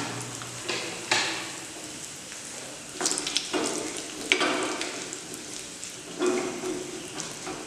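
Dried red chillies, garlic and spices sizzling in hot ghee in a small steel pan, a tadka for dal rasam. A plastic spatula stirs them several times, scraping against the pan.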